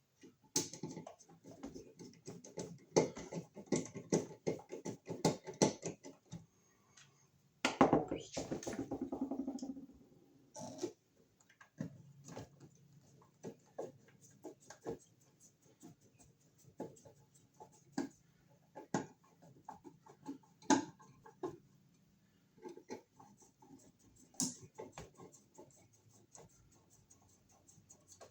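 Clicks, taps and scraping of hands pushing a wired electrical receptacle and its wires back into a surface-mount Wiremold box, busiest in the first few seconds, with a louder rattle about eight seconds in.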